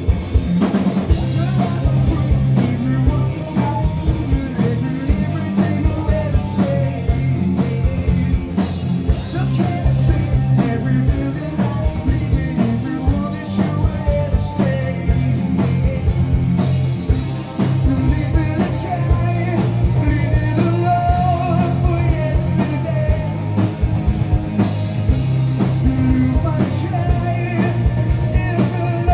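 Live rock band playing loudly: distorted electric guitar, bass guitar and drum kit with a singing voice over them.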